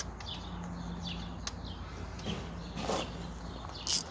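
Small birds chirping over and over in the background, with a few light clicks, a short rustle about three seconds in, and a sharp knock near the end.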